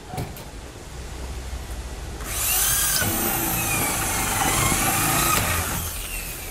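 Corded electric drill drilling into the steel skin of an EPS sandwich wall panel at a panel joint. It starts about two seconds in and runs for about three and a half seconds, its pitch wavering as it cuts.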